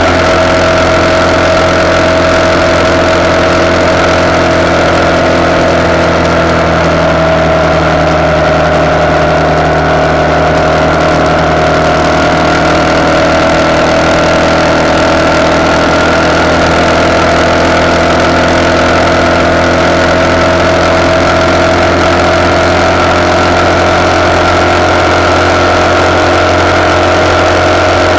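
RPS Hawk 250's single-cylinder four-stroke engine running through a decatted CRF230 exhaust, holding a steady pitch at an even road speed, picked up by a mic on the handlebar.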